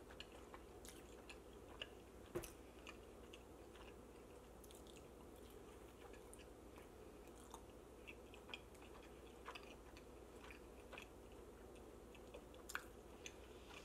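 Faint close-miked chewing of pizza, with soft wet mouth clicks and a couple of sharper clicks, one about two seconds in and one near the end.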